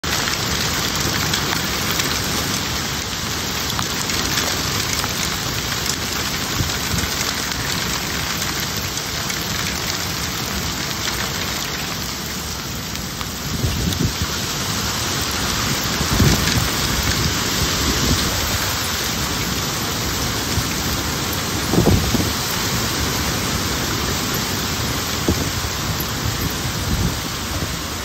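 Heavy rain mixed with hail pouring down in a strong wind, a steady dense hiss. A few deeper gusts surge in during the second half.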